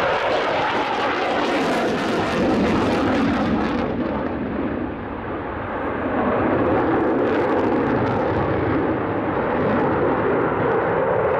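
A Eurofighter Typhoon's twin EJ200 turbofan jets roaring through a display pass. The roar dips briefly about five seconds in, then swells again.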